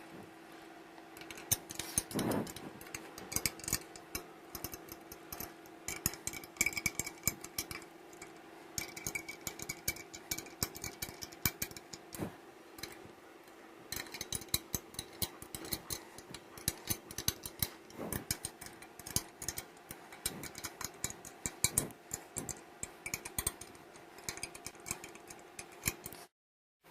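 Screwdriver and small metal parts clicking and rattling in quick runs of ticks as screws are driven back into a dish machine pump housing, over a steady low hum.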